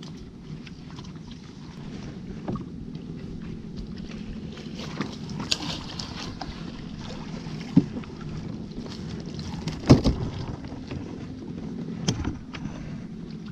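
A wooden pole knocking against a small fiberglass boat's hull, with water splashing as fish are flicked from the water into the boat. There are several sharp knocks over a steady low rumble, the loudest about ten seconds in.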